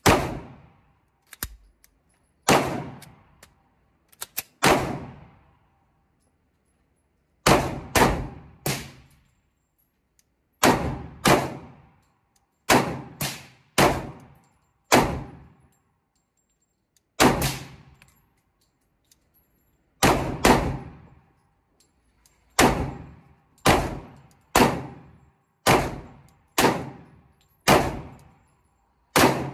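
Glock 21 Gen 5 pistol in .45 ACP fired shot after shot, about two dozen single shots at an uneven pace, some in quick pairs and runs with short pauses between. Each shot has a ringing tail of about a second.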